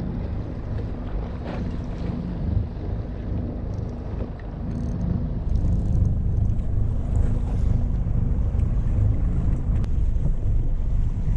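Wind buffeting the microphone over the steady low hum of a fishing boat on the open sea, getting louder about halfway through.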